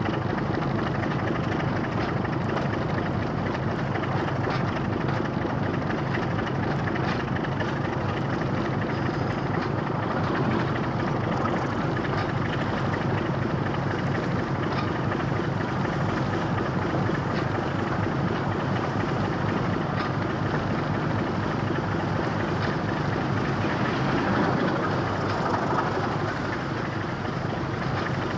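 Double-headed British Rail Class 25 diesel locomotives, their Sulzer engines running with a steady, unbroken drone.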